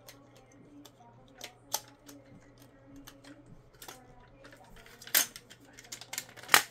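Hard plastic toy parts of a Megazord figure clicking and clacking as they are handled and snapped on and off. The clicks are irregular, with three louder clacks about two seconds in, about five seconds in and near the end.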